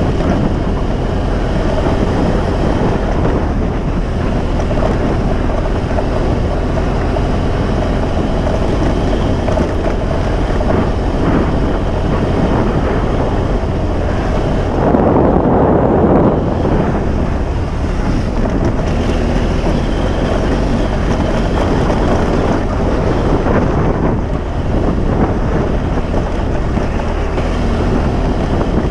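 Motorcycle ridden fast on a sandy dirt track: engine running steadily under heavy wind buffeting on the camera microphone, with a louder surge about halfway through.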